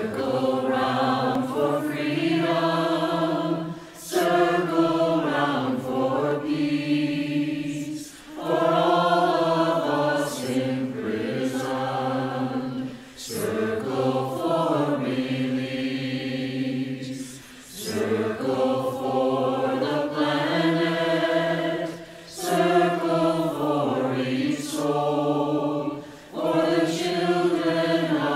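Mixed-voice church choir, men and women, singing a chant-like song together in phrases of about four seconds, each broken by a short breath.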